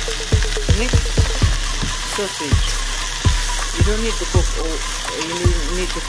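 Sliced sausages, peppers and onions sizzling as they fry in a stainless steel pot, stirred with a wooden spoon that knocks and scrapes against the pot many times.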